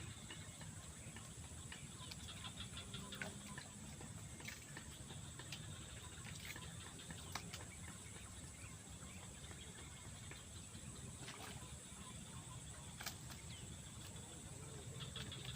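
Faint lakeside ambience: a steady high-pitched hum with scattered light clicks and ticks over a low rumble.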